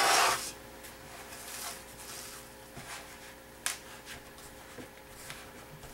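Quiet room with a faint steady hum. There is a short noisy rustle right at the start, then a single sharp click a little past the middle and a few light taps.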